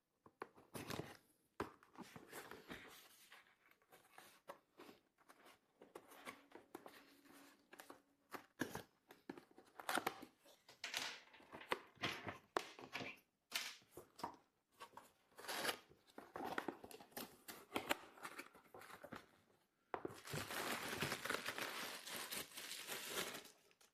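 Unboxing sounds: the product's packaging being handled and opened, with many short, irregular rustles, crinkles and scrapes. Near the end comes about four seconds of continuous crinkling and tearing.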